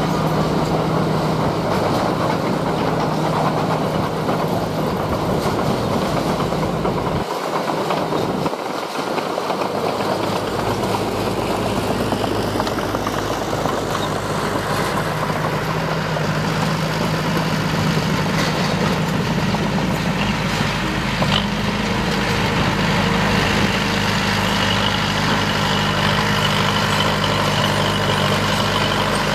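Heavy diesel engines of earthmoving machinery running steadily. The low rumble drops out briefly about seven seconds in, and the engine note steps up a little in pitch about two-thirds of the way through.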